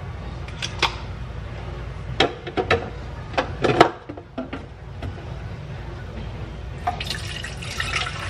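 Plastic clicks and knocks as a water filter cartridge is handled and fitted in a Breville espresso machine's water tank, the loudest knock about four seconds in. Near the end, water sloshes in the tank.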